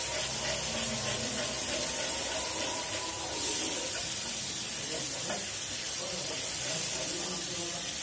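Onions and garlic paste frying in oil in a small metal karahi, sizzling steadily, while a metal spoon stirs and scrapes the pan.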